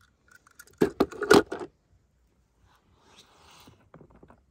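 Toy cars being handled: a quick cluster of clinks and knocks about a second in, then a soft scraping rustle and a few lighter clicks near the end.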